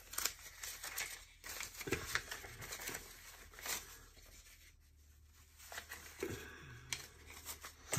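Paper banknotes rustling and crinkling in short, scattered bursts as a stack of bills is handled and leafed through by hand.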